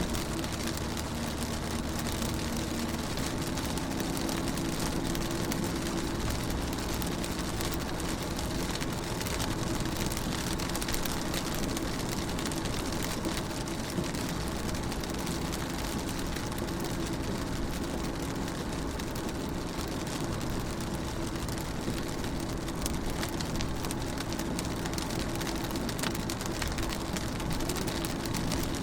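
Rain falling on a car window: a steady hiss dense with small drop ticks, over a steady low hum.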